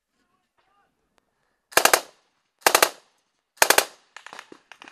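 Three short bursts of machine-gun fire close by, each of a few rounds, about a second apart. Quieter scattered single shots follow near the end.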